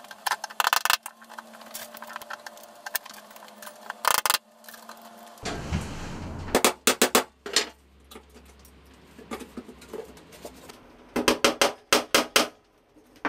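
Quick runs of sharp hammer taps, pins being knocked into the wall to hang pictures, in four bursts of several strikes each.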